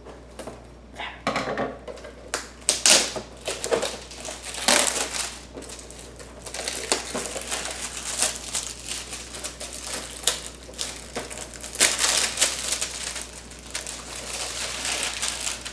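Cardboard and plastic toy packaging being handled and pried open by hand: irregular crinkling, crumpling and scraping noises in quick uneven bursts.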